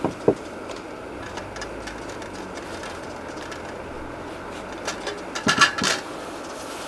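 Two short knocks, then a brief clatter of kitchenware being handled about five and a half seconds in, over a steady background hiss.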